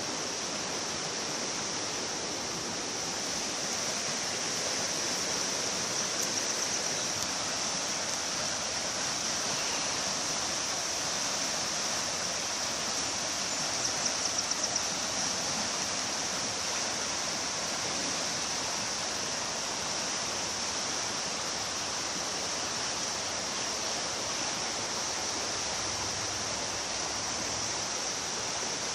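Pacolet River running high after a flood: a steady rush of water, with a brief run of about half a dozen quick ticks around the middle.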